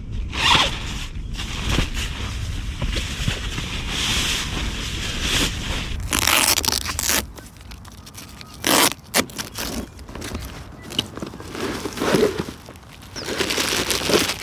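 Zippers being pulled open and shut on camping bags, in short rasping strokes, with gear and a plastic bag rustling as they are packed. A low rumble runs under the first half and stops about seven seconds in.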